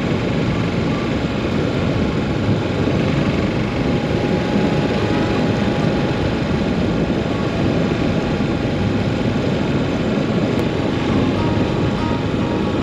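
Steady wind rush and engine noise from a Yamaha SR400's single-cylinder engine while the motorcycle is ridden at a steady pace.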